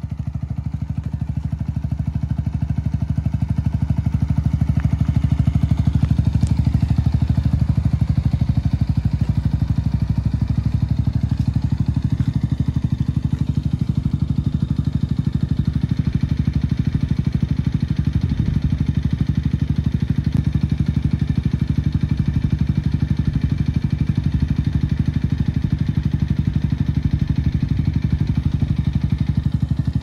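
Yamaha WR125X's 125 cc single-cylinder four-stroke engine idling steadily, rising a little in loudness in the first few seconds and then holding an even note.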